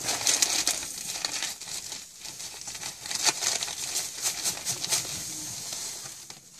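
Salt pouring from a woven plastic sack into a wet pit: a steady crackling hiss of grains with the rustle of the sack, tailing off near the end.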